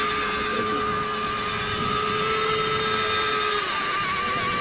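Electric wing-fold mechanism of a large RC F4U Corsair model whining steadily as the folded wings swing out into flight position. One of its tones stops about three and a half seconds in.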